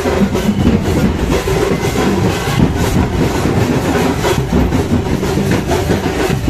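Loud, continuous din of a festival crowd with a devotional group's drums and cymbals clattering without a break.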